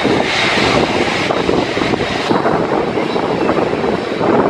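Emirates Airbus A380's four Engine Alliance GP7200 turbofans running at taxi power as the airliner taxis close by, a steady loud rushing jet noise.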